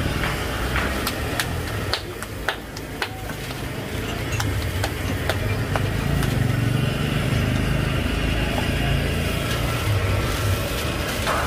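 Busy street ambience: a steady low rumble of motor traffic, swelling in the second half, with scattered sharp clicks and clinks.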